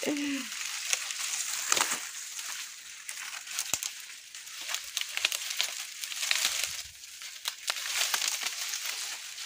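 Dry sugarcane leaves and brush rustling and crackling as they are pushed aside and handled, with scattered small snaps and clicks.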